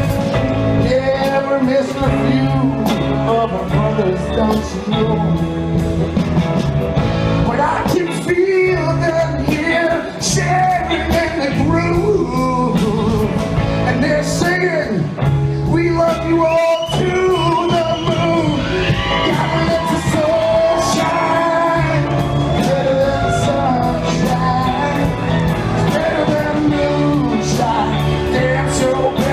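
Live band playing a slow rock song in an instrumental stretch between sung verses, with drums keeping a steady beat.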